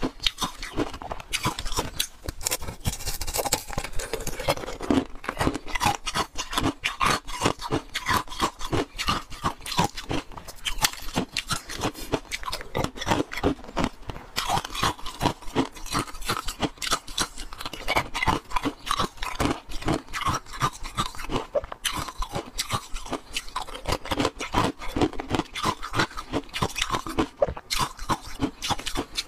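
Frozen milk-tea ice being bitten and chewed: a dense, unbroken run of crisp crunches, several a second.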